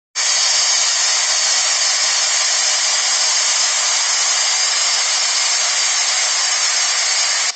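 Chilled water pump set running: a steady whirring hiss from the electric motor and pump, with water leaking through the pump's discharge rubber bellow. The sound cuts off abruptly at the end.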